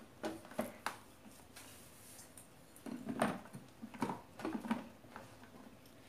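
A few faint, separate clicks and knocks of a plastic blender jar and its lid being handled and pressed into place; the motor is not running.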